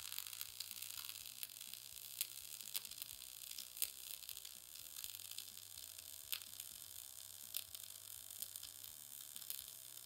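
MIG welding arc from a Harbor Freight Titanium welder: a steady crackling sizzle with scattered sharp pops, as a bead is run in small circles along a butt joint in thin steel plate.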